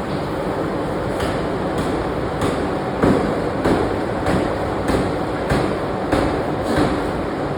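Pneumatic forging hammer striking a steel bearing-ring blank in an even rhythm, about one blow every 0.6 s starting about a second in, over a constant loud factory din.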